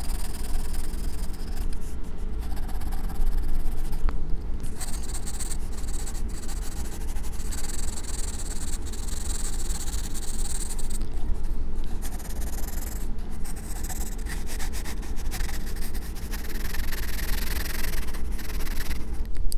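Staedtler graphite pencil shading on sketch-pad paper: a dry, scratchy rubbing of the lead in runs of quick strokes, broken by brief pauses.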